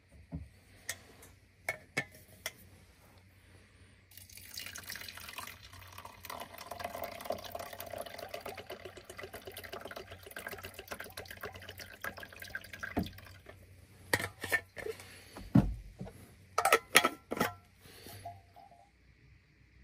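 Water running for about nine seconds, starting about four seconds in, with scattered clicks before it and a cluster of sharp knocks after it.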